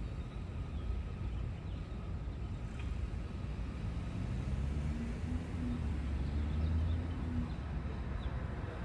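Passing street traffic: a low rumble of car engines and tyres, with one vehicle's engine swelling louder between about five and seven seconds in.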